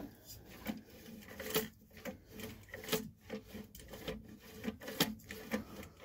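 Faint, irregular scrapes and rubs of metal on metal: calipers being worked over a freshly ground-down shaft to check its size.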